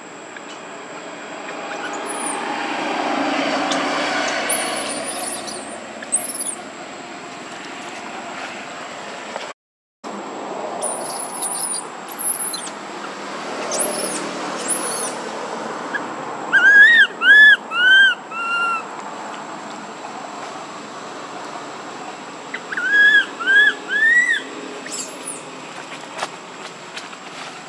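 Baby long-tailed macaque crying: a run of four short, high calls, each falling in pitch, past the middle, then three short rising calls a few seconds later. Thin high bird chirps sound throughout.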